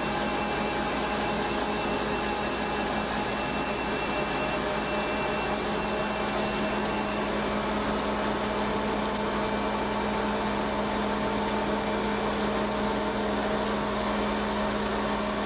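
Steady machine drone with a constant low hum: the bulk feed truck's engine and the trailer's hydraulically driven auger system running.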